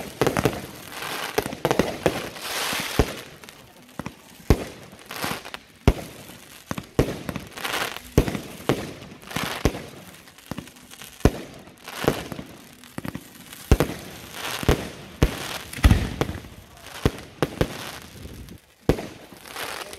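Aerial fireworks bursting in quick succession: sharp bangs about once or twice a second, with crackling and hissing between them.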